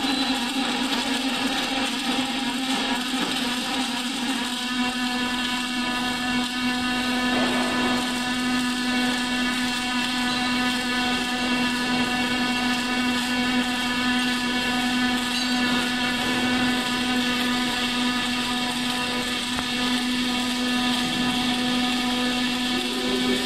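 Robotic MIG welding arc burning continuously, a steady pitched buzz over a hiss.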